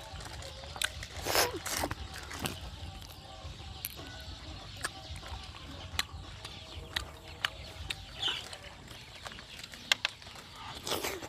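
Close-miked eating sounds: wet chewing, lip smacks and sharp mouth clicks as pieces of curried meat are pulled apart by hand and chewed.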